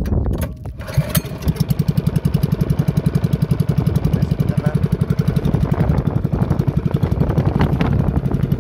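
Small Loncin engine on a bangka boat catching about a second in after being started, then running with a steady, rapid, even putter.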